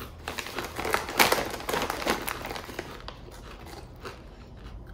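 Crinkling of a foil-lined potato chip bag as a hand rummages inside it for a chip. The crackling is loudest about a second in and dies down after about three seconds.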